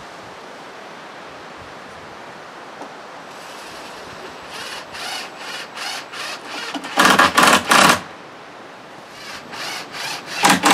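Cordless DeWalt drill-driver driving screws into wooden porch railing. The trigger is pulsed in short bursts from about halfway through, then the drill runs flat out for about a second, and again near the end.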